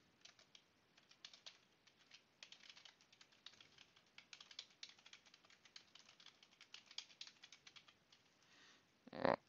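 Faint, quick keystrokes on a computer keyboard: a username typed, then a password typed twice, with Tab and Backspace presses between. A brief louder sound comes just before the end.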